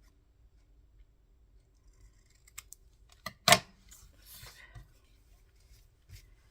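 Scissors snipping paper: a few light clicks, then one sharp snip about three and a half seconds in, followed by a brief rustle of paper.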